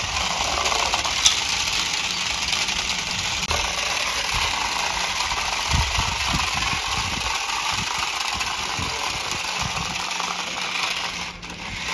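Toy remote-control stunt truck driving on concrete: its four small electric drive motors and gears whirring steadily, with a light rattle from the plastic mecanum-style wheels.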